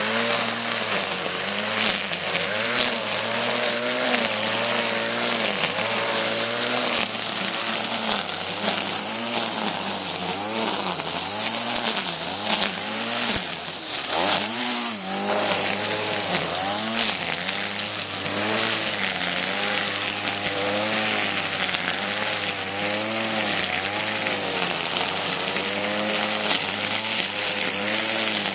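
A small power-tool engine revving up and down over and over, its pitch rising and falling about once a second, with a steady hiss above it.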